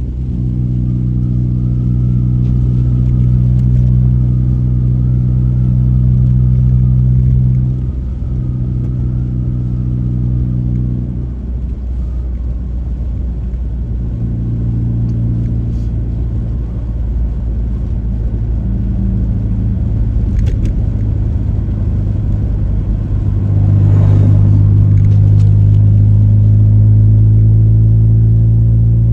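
A vehicle's engine and road noise on a drive, a steady low drone. Its pitch and loudness shift a few times as speed changes, growing louder a little past two-thirds of the way through.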